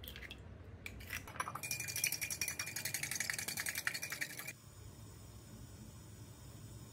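An egg cracked on the rim of a glass cup, a few sharp clicks, then a fork whisking the egg inside the glass cup: rapid, even clicking of metal on glass for about three seconds, stopping about four and a half seconds in.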